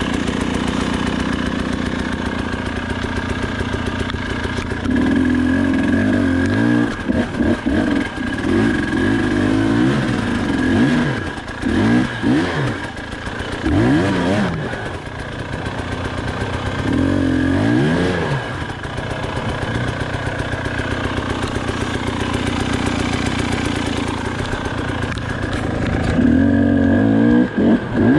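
KTM 300 XC-W two-stroke dirt bike engine running at a low, steady speed, then revved in repeated short bursts that rise and fall in pitch. It settles back to a steadier run for a while, then revs again near the end.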